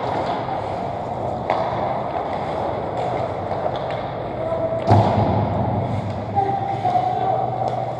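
Ice hockey skates scraping and gliding on rink ice, with hockey sticks knocking. The loudest sound is a sharp knock about five seconds in, and there are smaller ones near the start and about a second and a half in.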